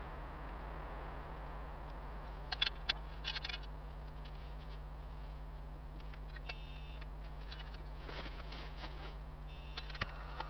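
A few light metallic clinks of cooking chopsticks against metal cookware, in a quick cluster about two and a half to three and a half seconds in, with lighter scattered ones later and one near the end. Under them runs a steady low hum and hiss.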